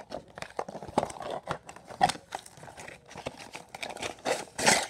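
Cardboard toy box with a clear plastic window being opened by hand: an irregular run of clicks, crinkles and tearing sounds, with the longest, loudest tear near the end.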